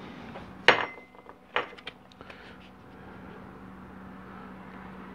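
Metal transmission parts clanking on a workbench: two sharp clanks about a second apart, then a few lighter clinks. After that comes quieter handling as the 4L60E valve-body separator plate is lifted off the case, over a steady low hum.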